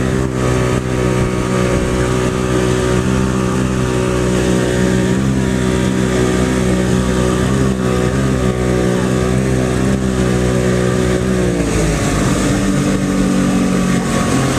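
Jet ski engine running at steady throttle over a rushing noise. About eleven and a half seconds in, the engine note drops as the throttle is eased off.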